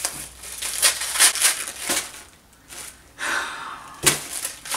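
Gift wrapping crinkled and torn open by hand in irregular rustling bursts, with a sharp click near the end.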